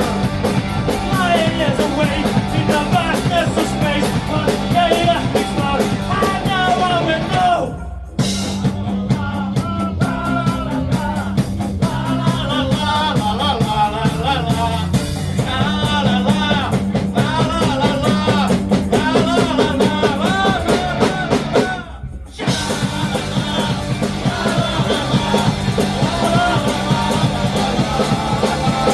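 Live rock band playing a loud song with a sung lead vocal, breaking off briefly twice.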